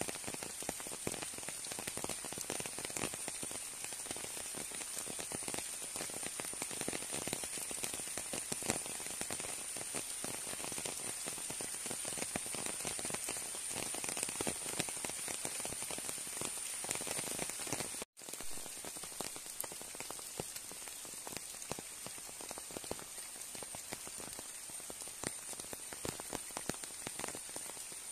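Steady rain pattering onto the surface of a flooded river, a dense hiss of many small drop impacts, with a thin high whine running under it. The sound cuts out for a moment about eighteen seconds in.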